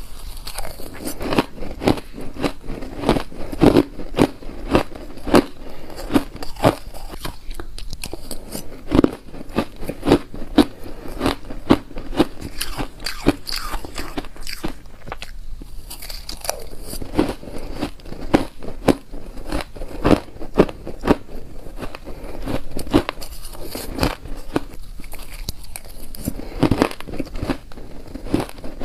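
Mouthfuls of shaved ice crunching between the teeth as they are bitten and chewed, in quick runs of crisp crunches with short pauses between spoonfuls.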